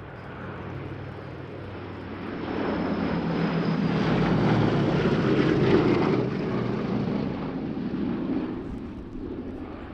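Boeing B-17G Flying Fortress's four Wright Cyclone radial piston engines droning in a flypast. The sound swells to its loudest about halfway through, then fades away.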